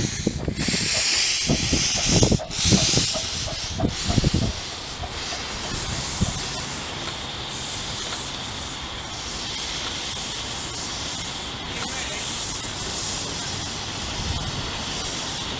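Miniature steam locomotive modelled on a Great Central Railway engine moving off slowly, steam hissing from its cylinder drain cocks. Louder for the first four seconds, with a few low thumps, then a steadier, quieter hiss.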